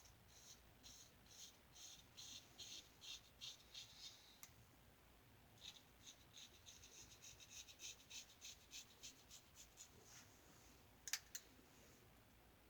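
Single-edge safety razor (a Gem lather-catcher razor with a Gem blade) scraping through lathered stubble in quick short strokes, about three a second, then after a short pause a faster run of strokes. Two sharp clicks come near the end.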